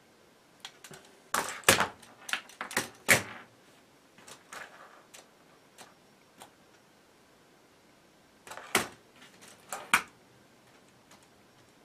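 LEGO tank-robot chassis clattering against the table as they are set down and moved about: a burst of sharp plastic clacks about a second and a half in, a few lighter ticks after, and another burst of clacks near the end.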